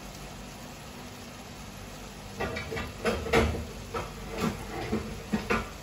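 Seafood and tomato sauce simmering in a frying pan with a soft, steady hiss. About halfway through come several short, louder bursts of a background voice.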